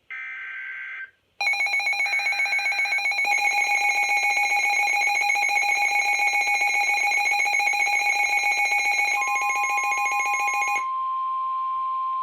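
Emergency alert signal: the last short screeching burst of the digital SAME header, then a loud, rapidly pulsing electronic alarm for about nine seconds. Near the end a single steady NOAA Weather Radio warning tone comes in and holds, announcing the warning to follow.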